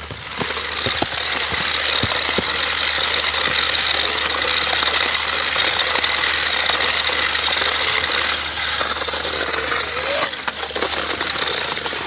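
Battery-powered RC drift stunt motorcycle's small electric motor and plastic gearing whirring steadily as its wheels spin on concrete. The whir starts about half a second in and dips briefly near the end.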